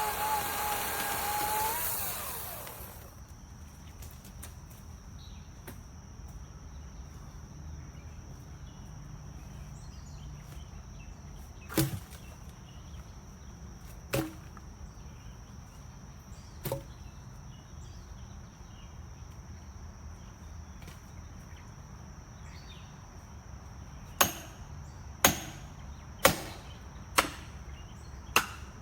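A battery chainsaw's electric motor runs, then winds down to a stop about two seconds in. Later come sharp knocks: three spaced a couple of seconds apart, then a run of about one a second near the end.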